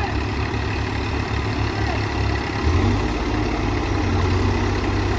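Diesel engine of a Case 851EX backhoe loader running at idle with a low, pulsing beat; a little past halfway the beat changes and evens out into a steadier hum.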